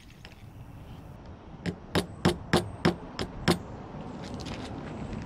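Seven light hammer taps with a short metallic ring, about three a second, driving a small tack through a paintbrush's metal sleeve to pin the bristle plug.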